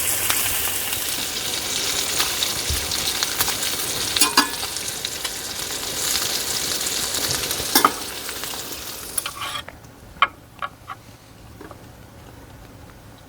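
Food sizzling as it fries in a pan, with a few sharp clicks along the way. The sizzle cuts off suddenly about ten seconds in, leaving only a few faint clicks.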